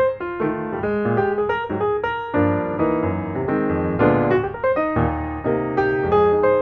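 Background piano music, a quick succession of notes and chords.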